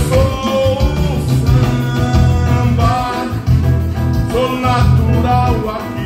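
Live dance band through a PA: a man singing into a microphone over keyboard and electric guitar, with a steady pulsing bass line.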